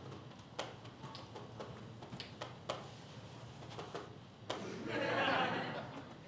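Footsteps with light clicks and knocks about twice a second as a wheeled suitcase is pulled across a floor. Near the end comes a louder noisy scrape, about a second long, as the suitcase is brought to a stop and stood upright.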